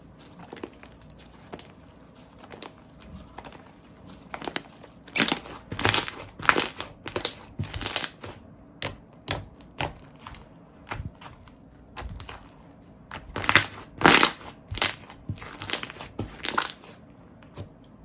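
Slime being squeezed and pressed by hand, making an irregular run of short crackling, crinkly squishes. They come loudest in a cluster about two-thirds of the way through and stop just before the end.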